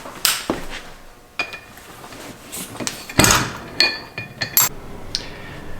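Metal tools and small parts clinking and knocking against an AP Racing aluminium brake caliper during disassembly. There are several sharp taps with brief ringing, the loudest about three seconds in and a quick run of clinks just after.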